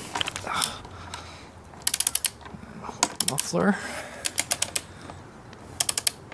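Ratchet-head torque wrench clicking in four quick bursts as it is swung back between strokes, tightening an exhaust mounting bolt.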